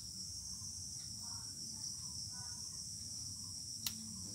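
Steady high-pitched background drone, with a single sharp click near the end.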